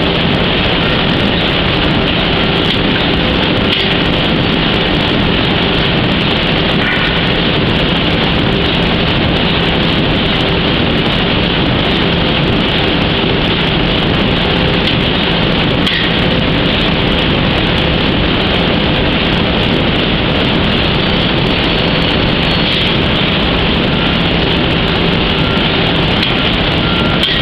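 Steady mechanical running noise of powered pallet roller conveyors and a pallet turntable in a factory hall, with a constant low hum and a few faint clicks.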